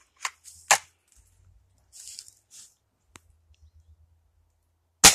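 A single shot from a suppressed Ruger Impact Max .22 air rifle near the end: one sharp crack, the loudest sound here. Before it come a few faint clicks and short hisses.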